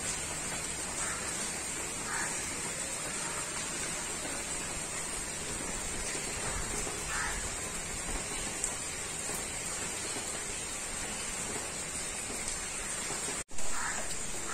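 Steady monsoon rain falling on the leaves of a mango tree, an even hiss. Near the end it cuts out for a moment, then comes back louder.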